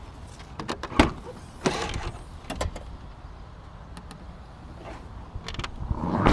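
BMW E34 530i Touring tailgate unlatched with a sharp click about a second in and lifted open, then swung down and shut with a loud thump at the end.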